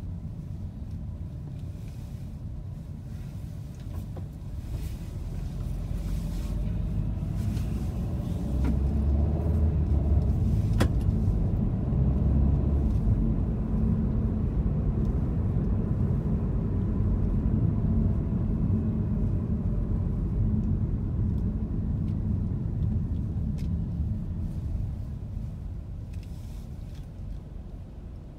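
Car heard from inside while driving in city traffic: a steady low engine and road rumble that swells as it gathers speed a few seconds in and fades near the end as it slows to a stop.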